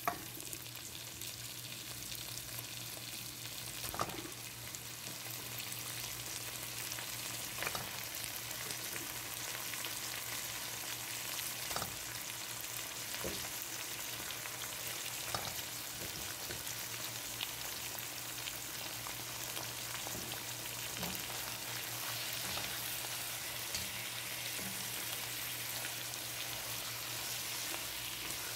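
Mutton pieces and sliced onions sizzling in hot oil on high heat as the meat sears, a steady frying hiss. A few short sharp knocks come now and then.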